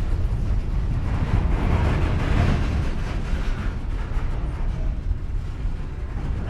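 Empty coal train of open hopper cars moving slowly on the track: a steady low rumble, with a rougher, hissing noise building in the middle and easing off again.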